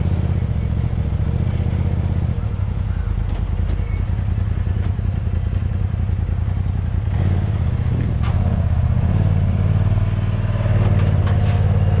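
Polaris RZR Turbo S side-by-side's turbocharged twin-cylinder engine running at idle with a low pulsing note, picking up a little and getting slightly louder about seven seconds in as the machine is eased toward the trailer.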